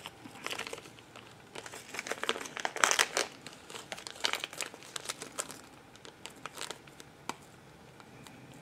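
Small clear plastic packet of fishing hooks crinkling as fingers handle it, irregular crackles that are loudest about three seconds in.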